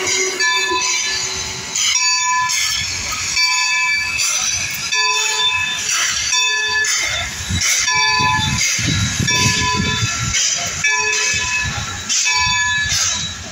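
Railroad wheels squealing on the rails as a train moves: a series of shrill tones that break off and start again at changing pitches, over a low rumbling.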